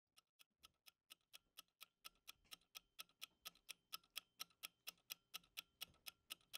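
Clock ticking, about four even ticks a second, fading in from silence and growing louder over the first few seconds.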